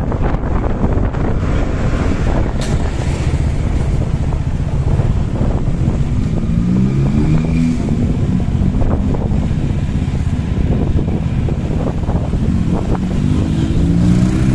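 Engine of the camera's own vehicle running under way with wind noise on the microphone, the engine note climbing in steps as it accelerates about six seconds in and again near the end.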